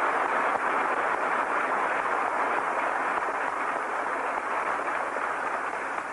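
Large crowd applauding steadily in a long ovation, slowly fading near the end.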